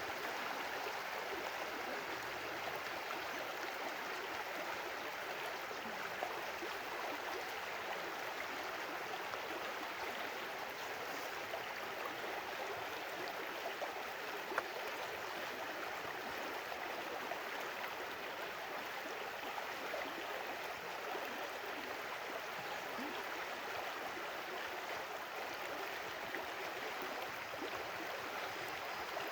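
A stream flowing steadily, an even, unbroken sound of running water.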